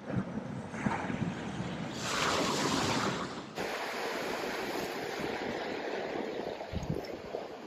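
Steady rush of surf and wind on a beach, with a louder surge of noise about two seconds in and a few low thumps near the start and end.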